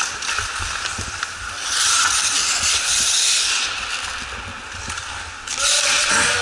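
Ice hockey skate blades scraping across the ice, one long scrape about two seconds in and another near the end, with a few faint knocks.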